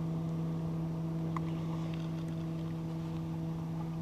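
A boat's motor humming steadily at one unchanging pitch, with a faint click about a second and a half in.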